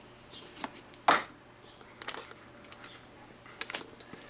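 Shrink-wrap plastic on a small box being cut with a utility knife and handled: a few scattered light clicks and rustles, with one sharper click about a second in.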